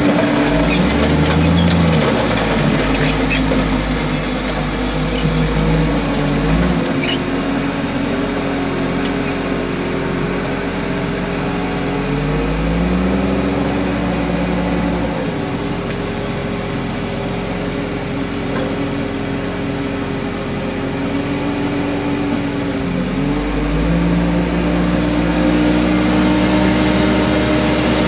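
Diesel engine of a grapple-equipped heavy machine running at working revs. Its pitch rises and drops a few times as the boom and grapple hydraulics are worked.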